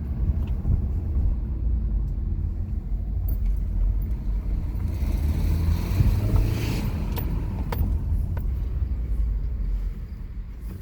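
2018 Subaru Forester 2.0XT's turbocharged flat-four engine running, rising in pitch with a hiss from about five to seven seconds in, then settling back. A few light clicks follow near the end.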